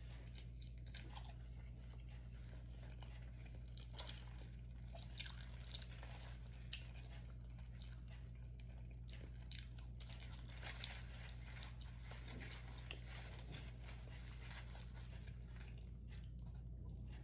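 Close-up chewing and biting of food, with scattered crunchy bites, over a steady low hum.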